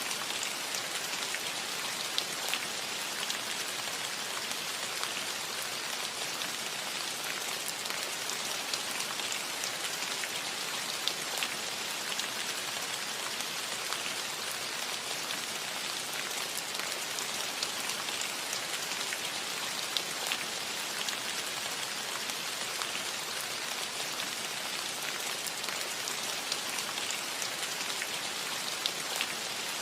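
Steady rain falling on a metal roof: an even hiss with scattered sharper drop ticks.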